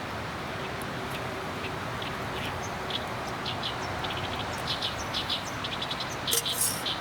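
Birds chirping in short high notes, sparse at first and quicker and louder toward the end, over a steady rushing background.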